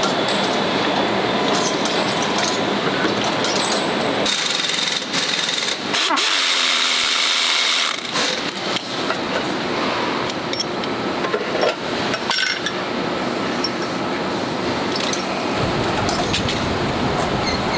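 Pneumatic impact wrench running down tractor wheel nuts, a rattling hiss for a few seconds a little before the middle. It sits over a steady factory din with scattered metal knocks.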